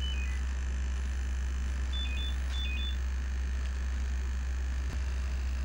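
Short electronic beeps: a quick falling run of three tones at the start, then a group of higher beeps on two alternating pitches about two seconds in, over a steady low hum. A single click comes near the end.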